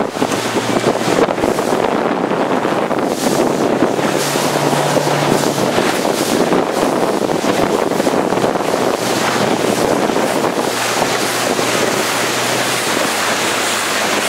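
Strong wind buffeting the microphone over rushing water and spray, as a 29er skiff planes fast downwind through chop in winds of about 14 m/s. The noise is loud and steady throughout.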